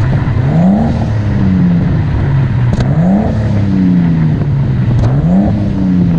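Nissan Skyline R32's RB20DET turbocharged straight-six revving. Three times, the engine pitch climbs quickly and then falls back more slowly.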